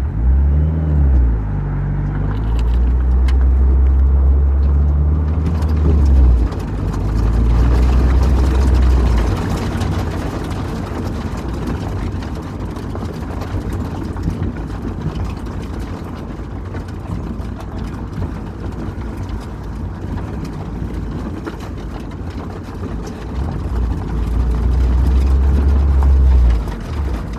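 Sports car's engine running and accelerating as it is driven through an autocross course, heard from inside the open-top cockpit; the low rumble is loudest in the first nine seconds and again near the end.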